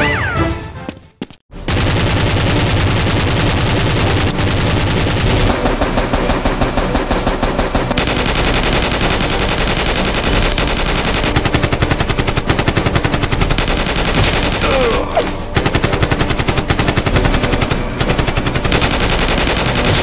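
Machine-gun sound effects of continuous rapid automatic fire, laid over a Nerf-blaster fight; after a short break about a second in, the firing runs almost without pause.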